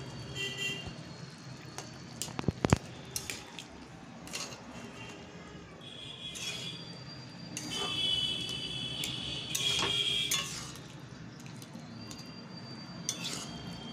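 Metal spatula scraping and knocking against a metal kadai while stirring boiled potato pieces in their cooking liquid. There are a few sharper knocks about two and a half seconds in, and stretches of high-pitched scraping later on.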